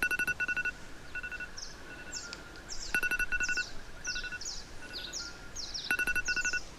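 An electronic alarm beeping in quick groups of four about every three seconds, with fainter beeps between, while birds chirp in short falling calls.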